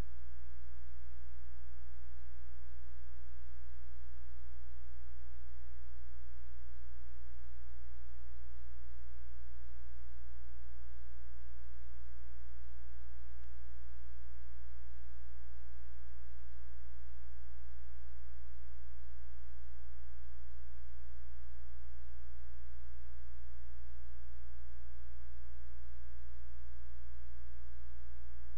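Loud, steady electrical mains hum with a string of higher overtones, unchanging throughout and with no other sound: interference on an audio channel that carries no microphone sound.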